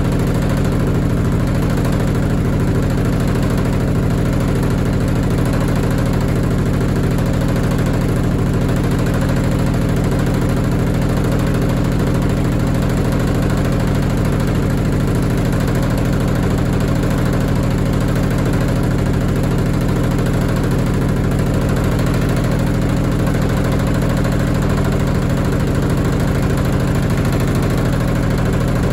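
Washing machine spinning at speed: a loud, steady drone of motor and drum with heavy vibration, unchanging throughout.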